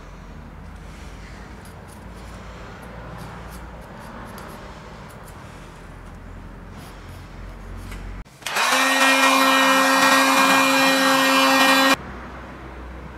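Light clicking of small metal parts being picked through in a tin with a screwdriver, then a loud electric motor whir that starts suddenly about eight and a half seconds in, runs at a steady pitch for about three and a half seconds and cuts off sharply.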